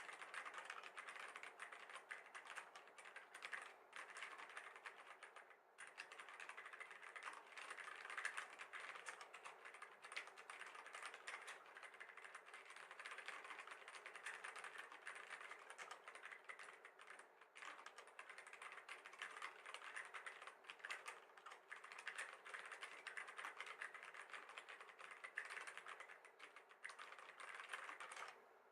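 Continuous fast typing on a Vortex Core 40% mechanical keyboard with Cherry MX Silver switches: a dense run of key clicks, broken by a few brief pauses.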